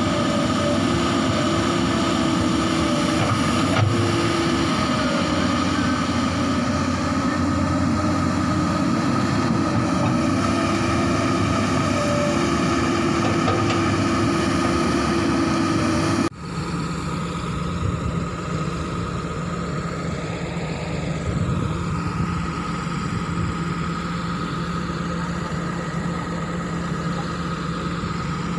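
Komatsu hydraulic excavator's diesel engine running steadily. About sixteen seconds in the sound cuts abruptly to an excavator engine running at a lower pitch.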